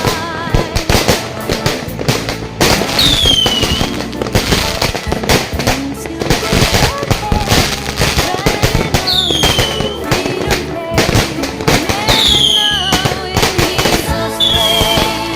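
Fireworks going off in a dense, continuous run of rapid crackling bangs, with a few short falling whistles among them. Music plays underneath.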